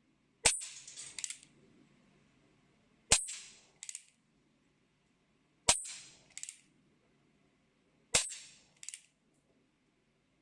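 Cowboy BB gun fired four times, evenly spaced about two and a half seconds apart. Each sharp crack is followed a moment later by a fainter clatter.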